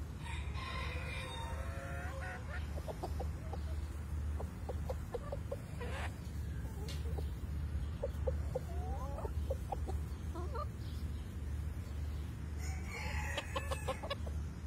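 Hens clucking in short, repeated calls, some rising in pitch, with a denser burst of calling near the start and again near the end. A steady low hum runs underneath.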